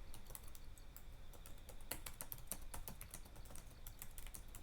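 Faint, irregular clicking, several clicks a second, over a low steady hum.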